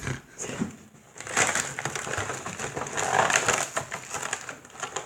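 Plastic toy packaging being handled and crinkled, an irregular crackling with many small clicks that starts about a second in.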